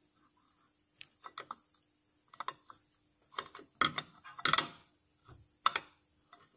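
Irregular light metallic clicks and knocks as the SsangYong Actyon's crankshaft pulley is pressed and rocked by hand with the engine off. The pulley is loose on the crankshaft, the cause of the drive-belt squeal.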